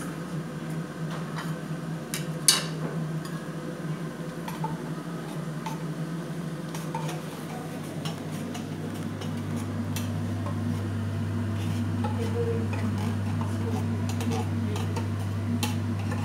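A metal spoon scraping and tapping against a condensed milk tin and a pan: a run of light clicks and knocks, with one sharper clack about two and a half seconds in. A steady low hum comes in about nine seconds in.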